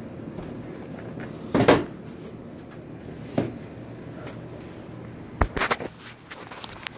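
Several sharp knocks and thumps, like a door or cupboard closing: the loudest about a second and a half in, another in the middle and a quick cluster near the end, over a steady low background noise.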